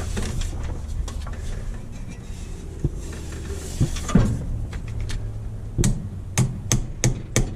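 Scattered knocks and clatter from working under the hood of a 1972 Dodge Demon, then, near the end, a quick run of hammer blows, about three a second. The hammering comes while trying to get a car that clicks but won't crank to start.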